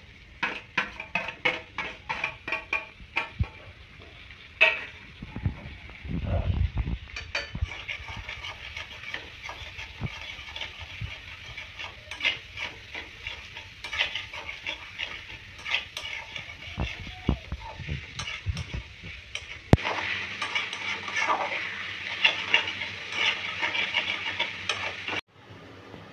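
A flat metal spatula scraping and tapping against a metal kadai as sliced onions are stirred and fried in hot oil, over a steady sizzle.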